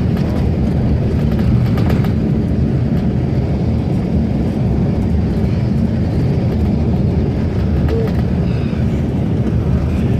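Steady low rumble of a moving road vehicle, engine and tyre noise heard from inside the cabin.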